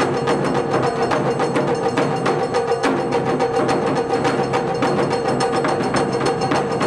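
A Japanese taiko ensemble drumming: a big ōdaiko on a tall stand and barrel drums on slanted stands struck with wooden bachi in fast, dense strikes.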